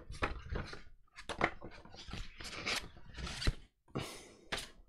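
Hardcover books being handled: a string of short rustles, scrapes and light knocks as the covers and pages are moved and turned over, with a dull knock about three and a half seconds in.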